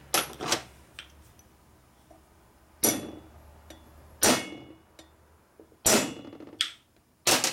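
Hammer tapping a punch to drive a dowel pin into an aluminium Harley-Davidson panhead cylinder head: a series of sharp metallic strikes spaced about a second or more apart, a few followed by a brief ring.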